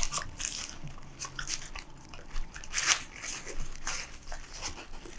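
Corgi biting and chewing a burger with a toasted bun, close up: irregular crunching bites and chewing clicks.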